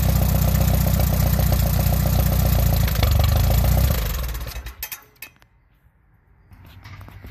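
1955 Allis-Chalmers B tractor's four-cylinder engine running steadily, then shut off about four seconds in, dying away within a second with a few light clicks as it stops.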